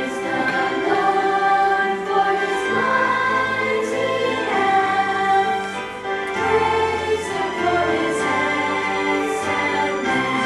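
Choir singing over instrumental accompaniment, a slow piece in the style of Christian or gospel music.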